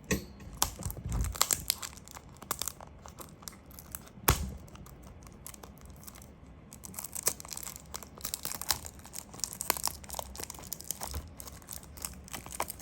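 Small die-cast toy-car boxes being opened by hand: packaging tearing and crinkling, with scattered clicks and a sharper knock about four seconds in.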